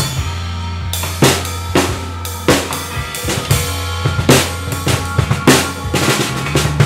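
Drum kit played with sticks: snare, toms and bass drum hits with Zildjian K cymbals ringing. It is played along to a recorded rock song, which carries a steady low note underneath.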